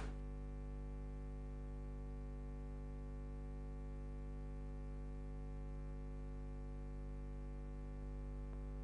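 A faint, steady hum made of many even tones that holds unchanged.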